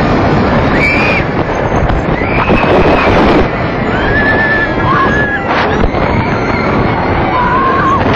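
Riders screaming on the Katun inverted roller coaster as the train runs through the course: several drawn-out high screams over a loud, constant rush of wind on the microphone.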